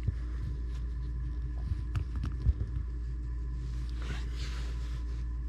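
Steady low hum with a few light clicks and knocks of plastic action figures being handled and posed, and a brief soft hiss about four seconds in.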